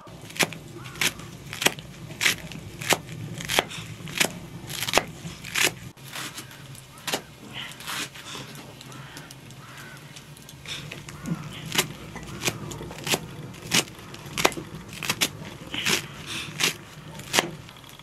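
A knife chopping green onions against a small wooden board, in sharp, regular strokes, about three every two seconds.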